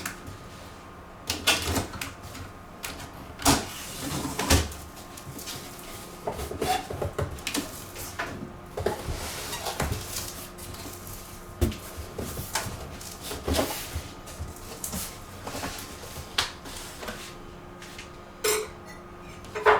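A cardboard shipping box being opened and handled: irregular knocks, clicks, scrapes and rustles of cardboard.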